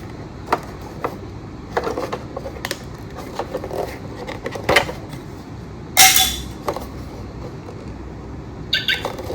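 Irregular clicks and knocks of plastic toy vehicles being handled and set down, about eight of them, the loudest about six seconds in.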